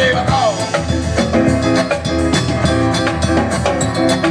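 Live band playing an instrumental passage of an Italian song: drum kit keeping a steady beat under bass and other instruments, with no singing.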